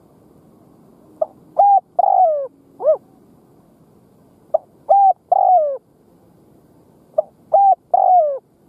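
Spotted dove cooing its song three times, about three seconds apart. Each phrase is a short note followed by longer coos, the last one falling in pitch.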